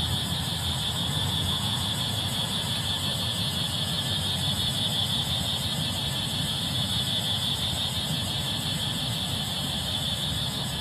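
Steady background ambience with no speech: an unchanging high-pitched hiss or drone over a low rumble, holding at one level throughout.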